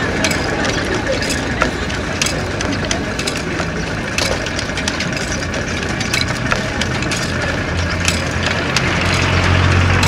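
Scattered wooden clacks from a hand-worked narrow-strip weaving loom over a steady engine hum, with the hum swelling near the end.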